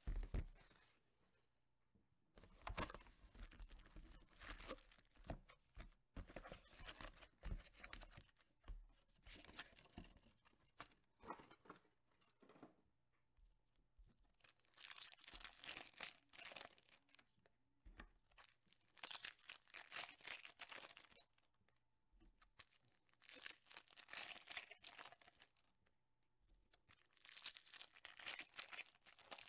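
Foil Topps Chrome Mini trading-card packs crinkling and wrapping tearing as a box is opened and the packs are handled and stacked, in rustling bursts of a few seconds with quiet gaps between.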